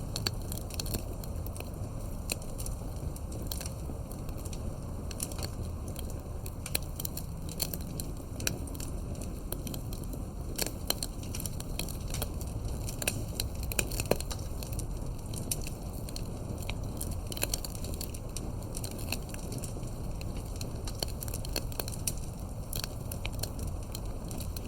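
Campfire burning: wood crackling with frequent irregular sharp pops over a steady low rumble, one pop louder about halfway through.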